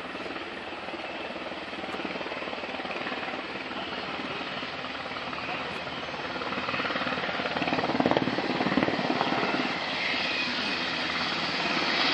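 Sikorsky UH-60 Black Hawk helicopter approaching low and settling onto the runway: rapid, rhythmic rotor chop with engine whine, growing louder as it nears and loudest about eight to nine seconds in.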